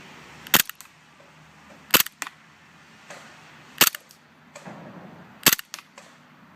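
WE Glock 17 gas blowback airsoft pistol fired four times, one shot every one and a half to two seconds. Each sharp pop is followed by a quieter click or two.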